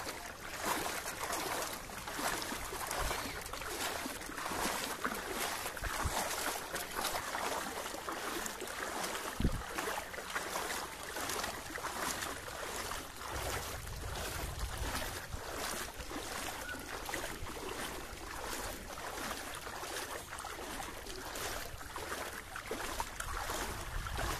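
Bicycle wheels churning through knee-deep floodwater on a road, a steady swishing and sloshing that surges in quick regular pulses. A single knock sounds about halfway through.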